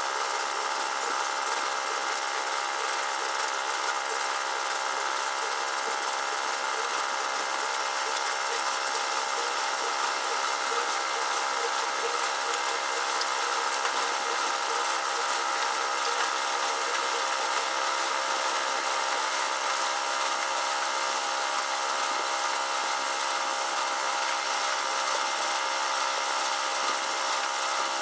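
Steady machine hum made of several constant tones.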